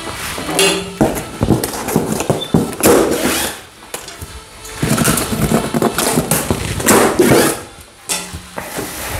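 Plastic packing straps being pulled off a large cardboard box and the box handled: irregular scraping, rustling and knocks, over background music.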